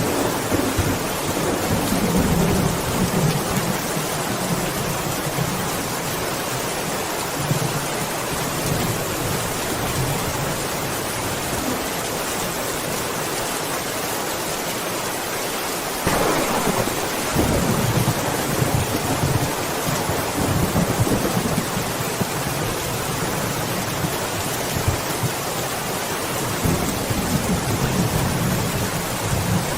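Steady heavy rain with rolling thunder: low rumbles near the start, a sharp clap about sixteen seconds in that rolls on for several seconds, and another rumble near the end.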